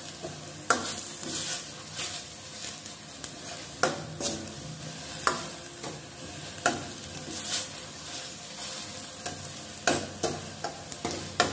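Steel ladle stirring and scraping onion and ginger-garlic paste frying in oil in a stainless steel kadhai, an uneven stroke about every second over a steady sizzle. The masala is being fried until it turns reddish-brown.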